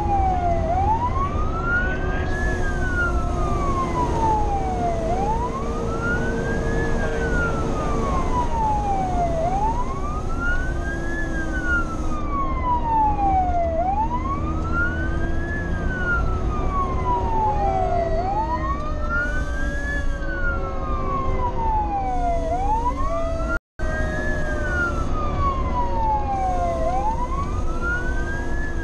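Fire engine siren in wail, rising and falling in pitch about every four and a half seconds, over a second, lower siren tone that slowly winds down in pitch, typical of a Federal Q mechanical siren coasting. Both run over the steady rumble of the truck's engine and road noise in the cab. The sound drops out for a split second about three-quarters of the way through.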